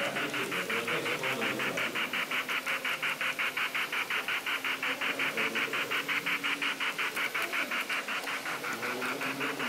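Model steam locomotive's sound unit chuffing steadily and quickly, about seven chuffs a second, as the engine runs along the track.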